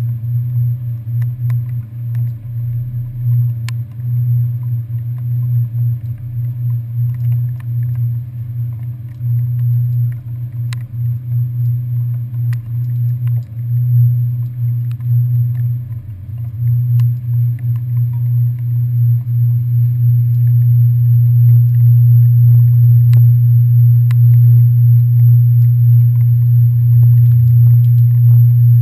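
Ferry's diesel engines running with a steady low drone. It grows louder and steadier about two-thirds of the way through, as the boat works its way into the terminal slip.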